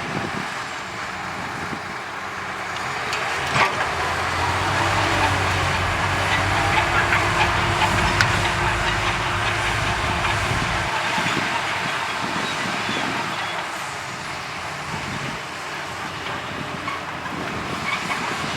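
Heavy diesel earthmoving machinery running under load with a steady, noisy hiss. A deep engine note swells a few seconds in and drops away about eleven seconds in. There is a single sharp knock early on.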